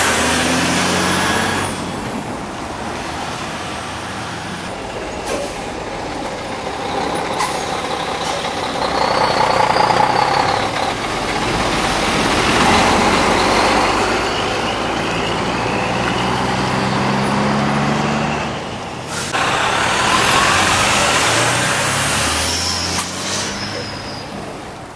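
Heavy diesel trucks, one a Mack tractor pulling a waste trailer, running and driving past with a drone of engine and tyre noise. There are hisses of air brakes at the start and again near the end.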